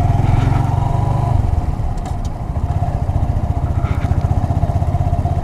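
2017 Honda Grom's single-cylinder 125 cc engine running at low speed as the bike rolls along, a little louder for the first second and a half, then steady.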